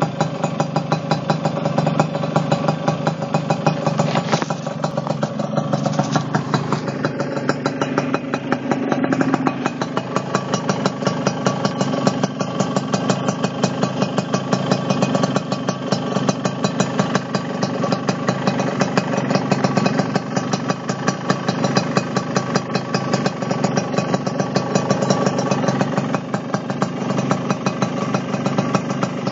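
Suzuki RC100 Tornado GX motorcycle's two-stroke single-cylinder engine idling steadily, with a rapid, even putter of exhaust pulses.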